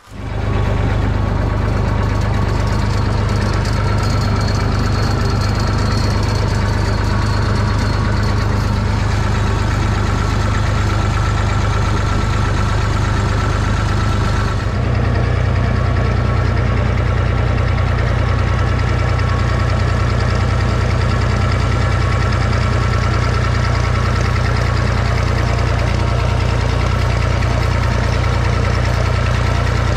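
Valmet 65 tractor's diesel engine running steadily, heard up close from the driver's seat. The engine sound changes abruptly about halfway through.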